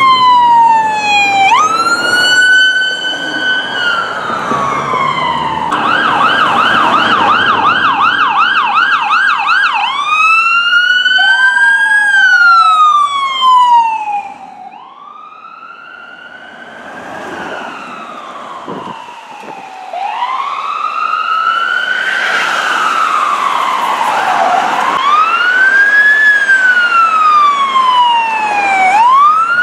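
Emergency vehicle sirens in wail, slow rising and falling sweeps. They switch to a fast yelp for about four seconds, then go back to wail. The sirens are quieter for several seconds just past the middle, then loud again.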